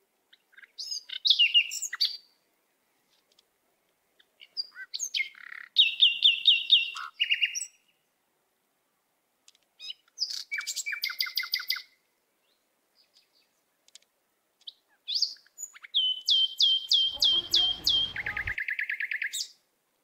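A songbird singing in four bouts a few seconds apart, each a quick series of repeated high chirping notes. The last and longest bout changes to a lower series of notes near the end, with a brief low rumble under it.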